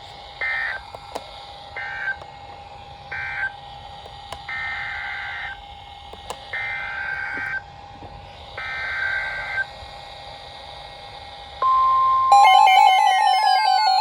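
NOAA Weather Radio Emergency Alert System broadcast: six short warbling bursts of SAME digital header tones, over a faint steady whine. About eleven and a half seconds in, a steady alert tone begins, and a louder warbling alarm with falling sweeps joins it near the end, signalling that a new warning follows.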